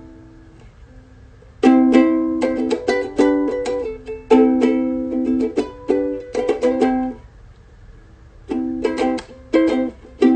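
Ukulele being strummed in rhythmic chords. There is a pause of about a second and a half at the start and another after about seven seconds.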